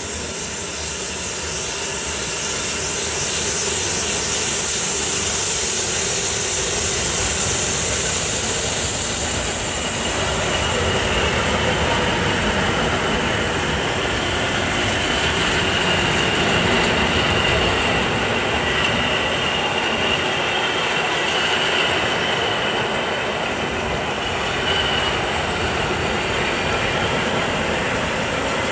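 Two coupled EN57 electric multiple units rolling slowly along the platform, wheels running on the rails. A thin high squeal comes through over the middle part.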